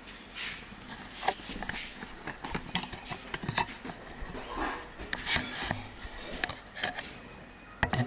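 Camera handling noise: a string of sharp clicks and knocks with rustling as the camera is moved about and set down on a wooden table.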